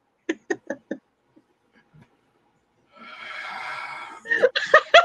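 People laughing: a few short chuckles, a near-silent pause, a breathy wheezing laugh about three seconds in, then a quick run of 'ha-ha' laughs near the end.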